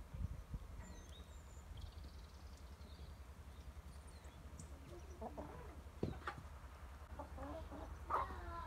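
Chickens clucking: short calls in several bunches from about five seconds in, over a steady low background rumble.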